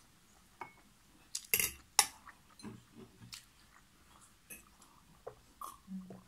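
Eating sounds: soft chewing and mouth clicks, with a couple of sharp clinks of a metal fork on the dishes about one and a half to two seconds in. Later come fainter clicks as tea is sipped from a glass.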